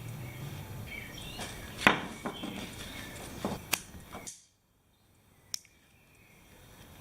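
Scattered clicks and taps of small items being handled, the sharpest about two seconds in; the sound cuts out abruptly about four seconds in and comes back faintly with one more click.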